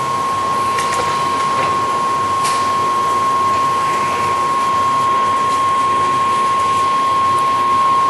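Harrison centre lathe running with a steady gear whine over its drive noise, with a few faint clicks in the first few seconds.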